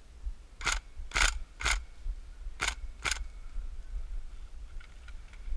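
Airsoft rifle firing five single shots: three about half a second apart, then a pause of about a second, then two more.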